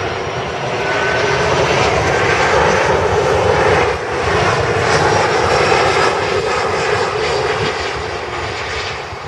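Jet airliner's engines passing close by: a loud rushing roar that builds over the first few seconds, holds through the middle and fades toward the end.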